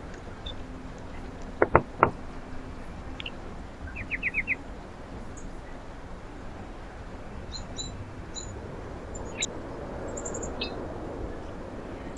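Small songbirds at a feeder giving short, high chirps, including a quick run of about five near the middle, over a steady background hiss. Two sharp knocks sound about two seconds in.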